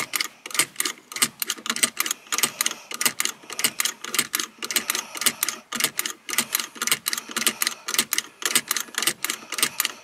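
Subaru Crosstrek seat belt buckle being latched and released again and again in quick succession, about four sharp clicks a second. It is the rapid buckle-unbuckle cycle that disables the seat belt chime.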